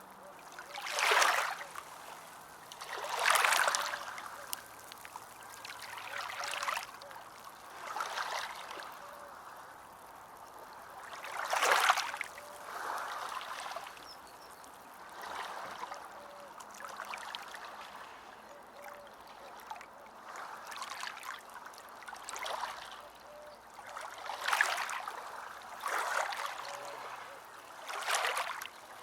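Water washing and splashing in repeated surges, one every two seconds or so, each swelling and fading over about a second, over a faint steady trickle.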